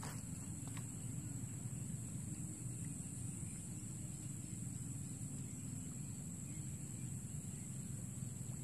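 Steady high-pitched insect chirring, typical of crickets in a rice field, over a low steady rumble, with a couple of faint clicks near the start.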